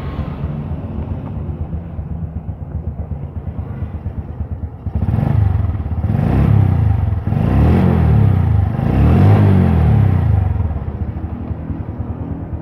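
Honda Absolute Revo motorcycle's single-cylinder four-stroke engine idling, revved up and down several times from about five seconds in to about ten seconds, then back to idle. It runs smoothly, without the cam chain rattle, its worn cam chain tensioner roller now replaced.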